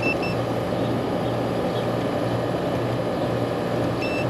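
Outdoor air-conditioning condenser unit running: a steady hum from the compressor with the rush of the condenser fan. Short electronic beeps sound twice at the start and once near the end.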